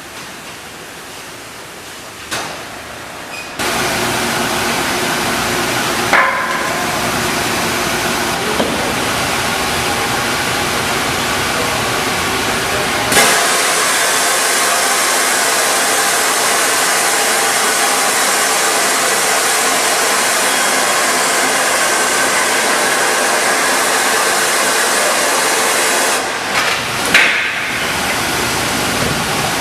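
Factory machinery running steadily, a loud even hiss with a faint hum, broken by a few sharp knocks; it starts about three seconds in and grows louder about halfway through.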